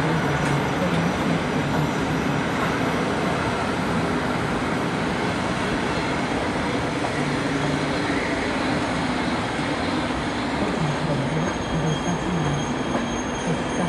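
Intercity passenger coaches rolling past, with a steady rumble of wheels on rail. A thin, high wheel squeal comes in near the end.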